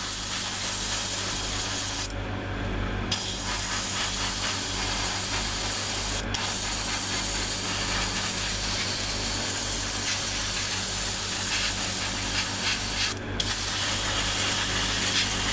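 Airbrush spraying paint: a steady hiss of air and paint, let off for about a second roughly two seconds in and again briefly twice later, with a low steady hum underneath.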